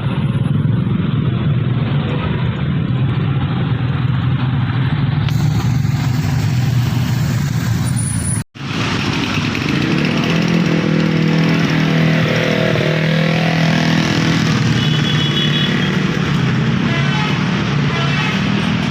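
Vehicle engines, motorcycles among them, running steadily in jammed traffic. The sound cuts out completely for a moment about halfway through, then carries on.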